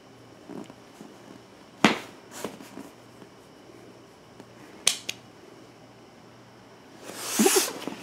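A pit bull shifting about on a flattened cardboard box: a few sharp crackles and clicks, then a louder rustling burst lasting most of a second near the end as the dog moves.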